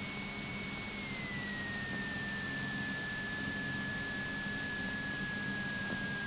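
Piper Warrior III cabin noise at reduced approach power: a steady hiss with a faint low engine hum underneath, and a thin steady whine that drops slightly in pitch about a second in.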